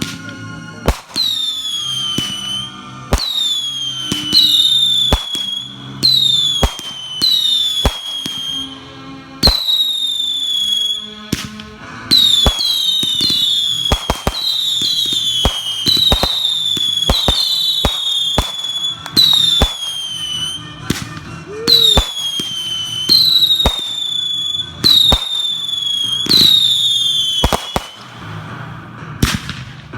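Whistling fireworks going off in quick succession: about twenty sharp cracks, each followed by a shrill whistle that falls slightly in pitch, sometimes overlapping, with a couple of plain bangs near the end.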